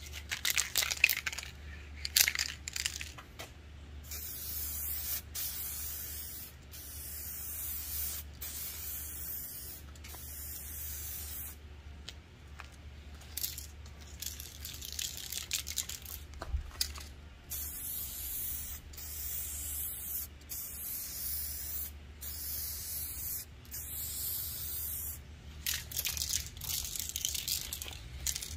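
Aerosol spray-paint can spraying in a series of hissing bursts with short pauses between, laying the final coat of paint, with a few sharp clicks near the start.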